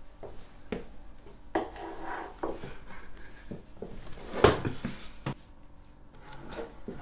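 Scattered knocks and rustles of a potted aloe plant in a terracotta pot being carried in and set down on a wooden table. The loudest knock comes about four and a half seconds in.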